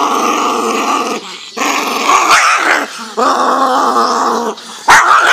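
Small dog growling at an elbow pressed against it: long continuous growls of about a second and a half each, broken by short pauses for breath. The growl rises into a higher snarl in the middle, and there is a sudden sharp outburst near the end.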